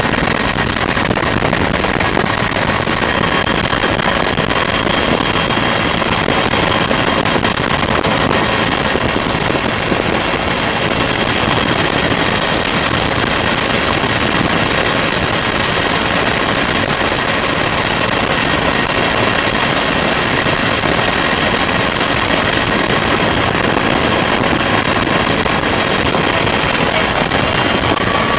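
Helicopter turbine engine and rotor running steadily, heard from inside the aircraft: a loud, even rushing noise with a constant high-pitched whine over it.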